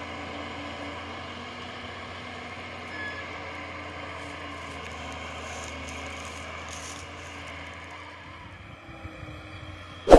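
Tipper truck's diesel engine running steadily as the truck drives away, slowly fading. Right at the end comes one short, loud pop as a subscribe-button animation begins.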